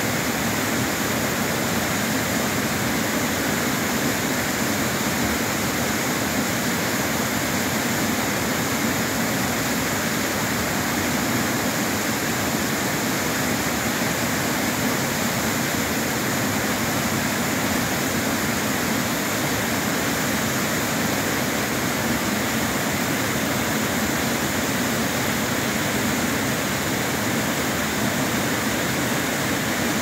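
Waterfall pouring over a rock ledge into a plunge pool: a steady, unbroken rush of falling water.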